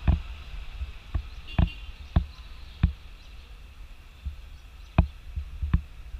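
About seven sharp knocks at an uneven walking pace: a GoPro Hero 4 camera jolting in its housing as it is carried on foot. Underneath is a steady low rumble of wind on the microphone and a faint steady high hiss.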